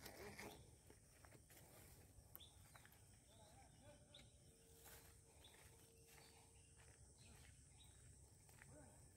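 Near silence: quiet outdoor ambience with a few faint distant bird calls.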